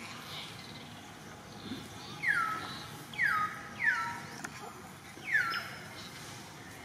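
Animal calling four times: short high calls, each sliding down in pitch.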